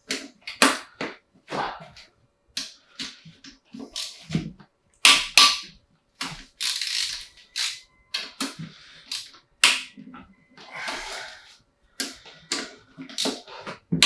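Metal tools and engine parts clanking and knocking in an irregular series of sharp hits, some with brief ringing or scraping, as the BMW M50B25 engine is taken apart.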